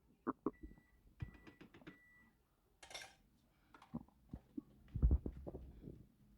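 A pregnant woman's stomach recorded close up, giving quiet scattered clicks and small gurgles, with a brief hiss about three seconds in and a deeper low gurgle near five seconds.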